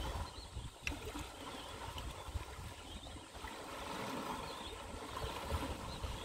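Tide-pool water trickling and washing among rocks as a steady hiss, with irregular low wind rumble on the microphone.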